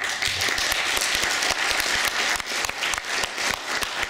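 Audience applauding: dense clapping of many hands that keeps up steadily.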